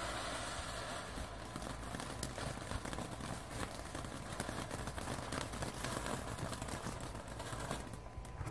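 Ground fountain firework spraying sparks: a steady hiss, then about a second in a dense run of fast crackling pops that fades near the end.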